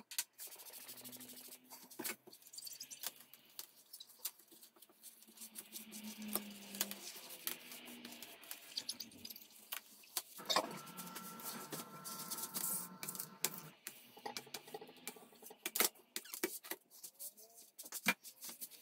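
Cleaner sprayed from a trigger spray bottle onto oven door glass, then gloved hands wiping and scrubbing the wet glass. Scattered clicks and rubbing run throughout, with a drawn-out squeak from about ten seconds in that lasts some three seconds.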